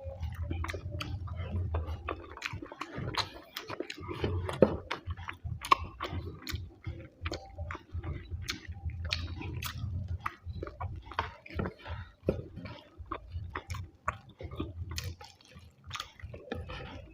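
A person chewing and smacking while eating rice with fish curry and egg curry, with many small wet clicks from the mouth.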